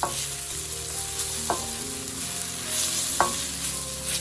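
Onion masala with ginger, garlic, green chilli and ground spices sizzling in oil in a pan as it is stirred.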